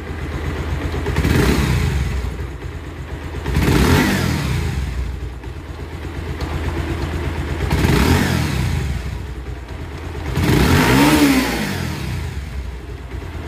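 Bajaj Pulsar motorcycle's single-cylinder engine idling and being revved four times, each rev rising and falling back to idle. It runs smoothly, a "very nice sound", after a full service with a new spark plug, air filter and engine oil.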